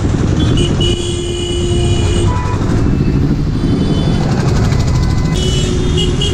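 Busy road traffic: engines rumbling close by, with short vehicle horn toots about a second in and again near the end.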